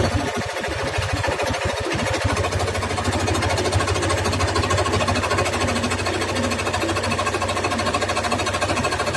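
Electric jigsaw cutting wood, its blade reciprocating rapidly with a steady motor hum and a fast, even chatter.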